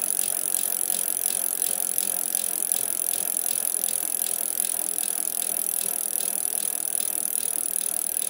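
Socket ratchet wrench clicking in a steady run of quick, even clicks as the 14mm linkage bolt is worked loose.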